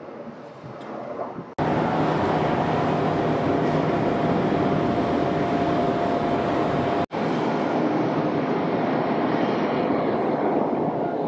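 Jet aircraft engines in three cut-together shots. First comes the rumble of a departing airliner. About a second and a half in, a sudden cut brings the loud, even run of a Gulfstream business jet's engines with a steady high whine. A second sudden cut about seven seconds in brings the loud engine noise of an Airbus A321 on the runway.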